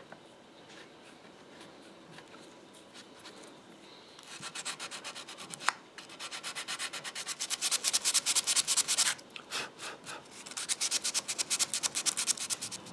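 Sandpaper rubbed by hand over a walnut patch in a wooden chair joint, in quick back-and-forth strokes, several a second, with a short pause about two-thirds of the way through. This is the repair being sanded flush. A few quiet seconds of faint scraping come before it, and there is one sharp tick as the sanding gets going.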